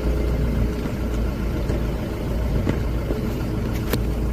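Vehicle engine running steadily with a deep low rumble while driving slowly along a rutted dirt track, with one sharp click near the end.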